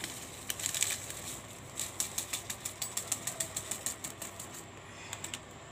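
A small plastic seasoning sachet being shaken over a pot to tip out the last of the powder, rustling in quick even pulses of about four a second.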